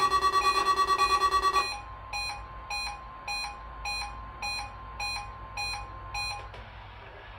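Electronic alert alarm: a loud, rapidly pulsing alarm of several tones cuts off about two seconds in. Eight short beeps follow, a little over half a second apart, over a faint steady tone, and stop shortly before the end.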